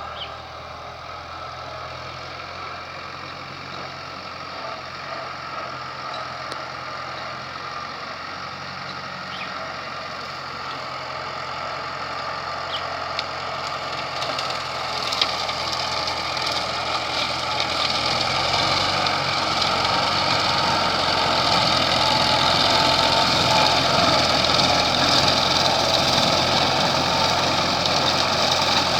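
Valmet 85 ID tractor's diesel engine running loud while driving a rotary mower, a steady engine note that grows louder through the second half.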